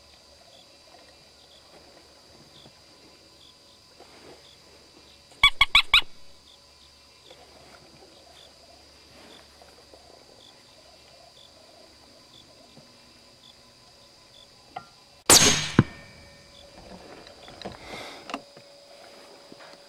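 A rifle shot about fifteen seconds in, sharp and ringing off for about half a second. Earlier there is a quick run of four short, sharp pitched squeaks, and insects keep up a steady high trill throughout.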